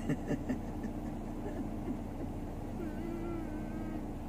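Car engine idling, heard from inside the cabin as a steady low hum. A few faint ticks come near the start, and a faint wavering hum-like tone rises and falls briefly about three seconds in.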